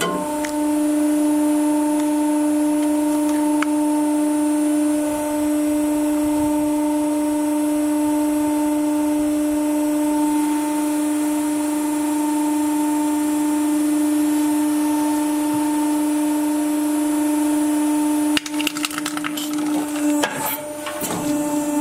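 Hydraulic press running with a steady hum. Near the end come a burst of clicks and crackles and a wavering hum as the ram squashes a soft rubber squishy toy.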